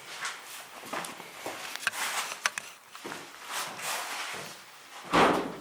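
Footsteps and scuffs on a hard floor, with a few sharp clicks and a louder burst of noise near the end.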